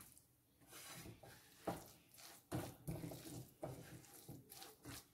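Faint scraping and stirring of a silicone spatula through onion-tomato masala in a frying pan, in a few irregular strokes.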